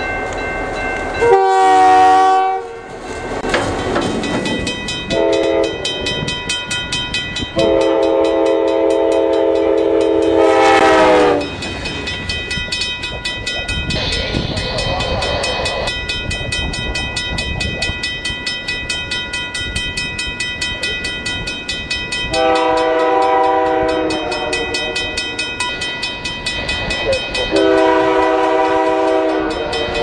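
Diesel freight locomotive air horns sounding five blasts: one about a second in, a short toot, a long blast of about four seconds, and two more near the end. Steady high ringing that fits a railroad crossing bell sounds between the blasts, over the rumble of a moving freight train.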